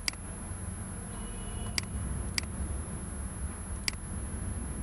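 Four sharp computer mouse clicks, the middle two close together, over a steady low background rumble.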